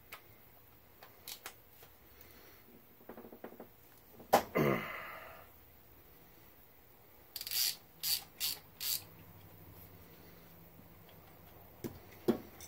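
Hand tools working a fitting off a Zexel diesel injection pump element: light clicks and scrapes of a ratchet, deep socket and adjustable wrench on metal. About four and a half seconds in there is a short loud sound that falls in pitch. Four sharp metallic clicks follow between about seven and nine seconds in.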